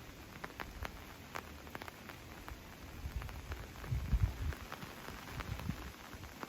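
Rain falling, with individual drops ticking irregularly over a light hiss. A low rumble swells about three seconds in and is loudest around four seconds.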